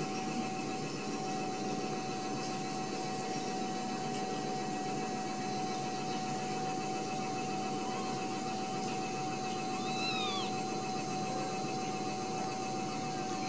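Steady background hiss with a constant hum. About ten seconds in, a ragdoll kitten gives one short, faint mew that rises and falls.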